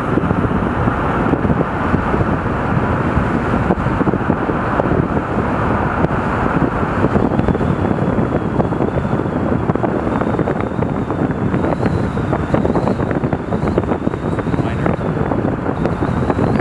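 Steady road and wind noise of a car driving along a highway, with wind rushing over the microphone. A faint high whistle comes in about halfway through.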